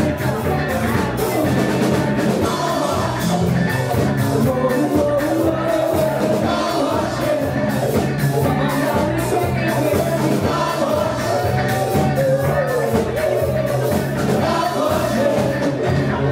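Live funk band playing: drum kit, bass guitar, electric guitars, keyboards and congas over a steady dance beat, with a wavering melody line on top.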